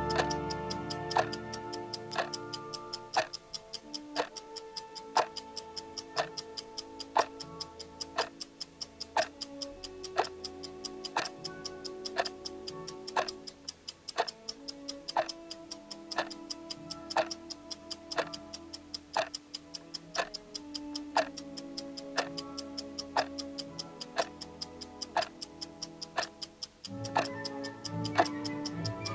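Clock ticking sound effect of a countdown timer, an even series of sharp ticks, over background music with sustained notes.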